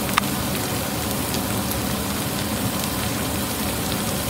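Chunks of soy meat frying in oil in a frying pan, a steady sizzle with an occasional small pop.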